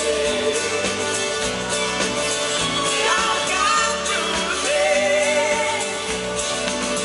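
A live pop band plays with bass guitar and drums under a male and female vocal duet sung into microphones.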